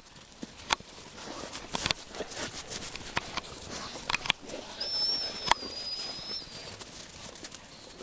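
Crunching steps and paws in snow, with scattered sharp clicks. About five seconds in a thin high whistle is held for about two seconds.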